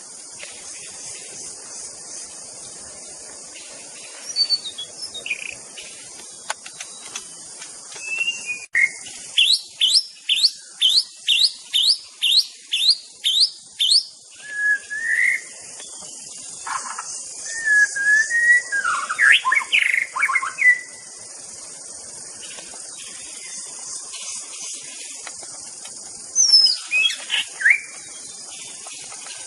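White-rumped shama singing: a run of about eleven sharp, falling notes at about two a second, then varied whistled phrases, and a short burst of notes near the end, over a steady high hiss.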